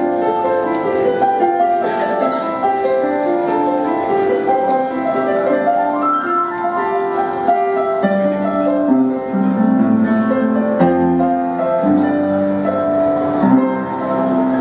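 Piano playing a slow melody over sustained chords, with lower bass notes coming in about halfway through.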